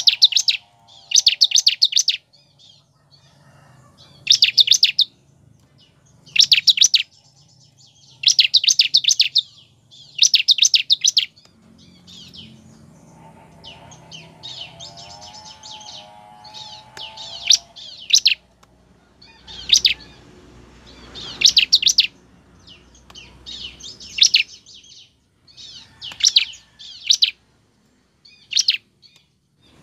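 Bar-winged prinia (ciblek) calling: short, loud bursts of rapid, high trilled notes, each well under a second, repeated every one to two seconds.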